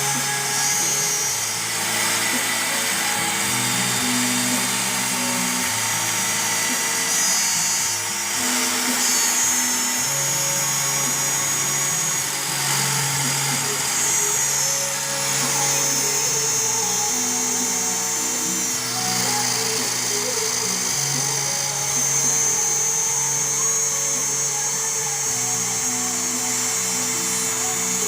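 Background music with a steady beat of changing notes, over the high, steady whine of a CNC router spindle cutting aluminium composite panel.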